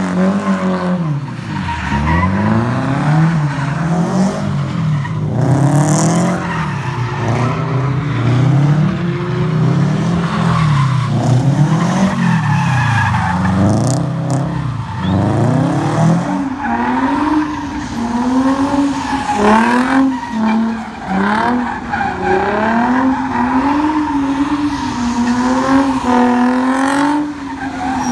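Drift cars' engines revving up and falling back over and over as they slide through the turns, with tyres squealing and skidding on damp asphalt. From about halfway through, a higher-pitched engine takes over.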